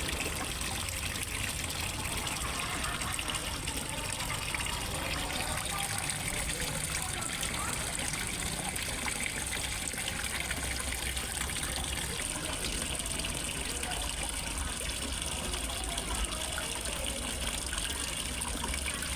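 Steady gushing and trickling of water falling into a fish pond, with a low steady hum underneath.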